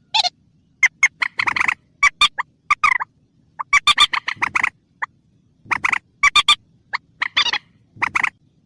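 Recorded call of a rail (burung mandar), played as a hunting lure: bursts of rapid, sharp, repeated notes, each burst lasting up to about a second, coming again every second or so.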